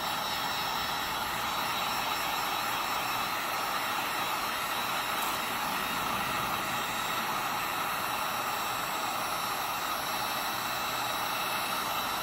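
Hot-air gun blowing steadily, heating a phone screen to loosen it for removal.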